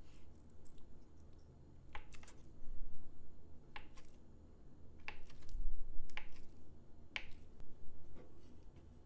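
Irregular clicks and light knocks of kitchen utensils and dishes being handled, some coming in quick pairs.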